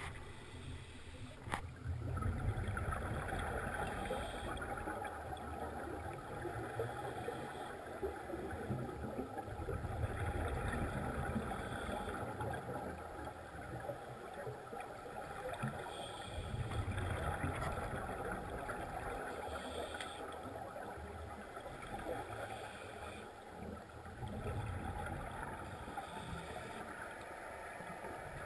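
Underwater recording of a diver breathing on a vintage double-hose scuba regulator: exhaled bubbles rumble in slow swells about every seven seconds over a steady watery hiss.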